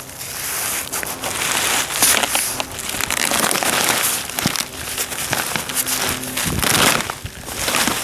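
Crackling and rustling of hands digging sweet potatoes out of a growing container: scraping through soil and dead vines, with many small clicks and scrapes.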